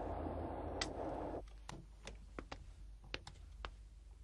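Steady car-cabin road noise that cuts off about a second and a half in, followed by faint, irregular clicks from a door's lock and handle being worked.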